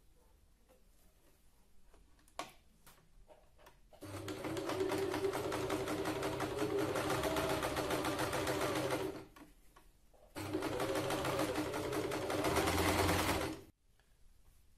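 Electric sewing machine stitching through fabric in two runs at a steady fast speed, the first about five seconds long and the second about three, with a short stop between. Before the first run there are a few seconds of quiet with faint clicks.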